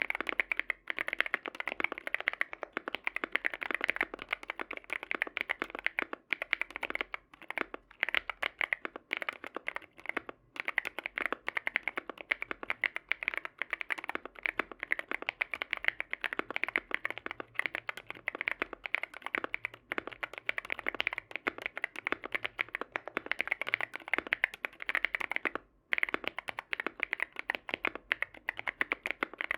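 Fast, continuous typing on a foam-filled Sugar65 mechanical keyboard with factory-lubed Tecsee Ice Mango tactile switches and Cannon Keys Earl Grey Lavender keycaps, with a few short pauses.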